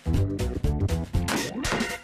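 Upbeat instrumental music with a steady beat and a pulsing bass line.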